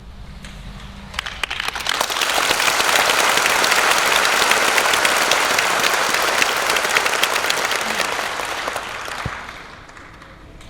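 Concert audience applauding as the string orchestra's last note dies away. The clapping swells a second or two in, holds, and fades out near the end.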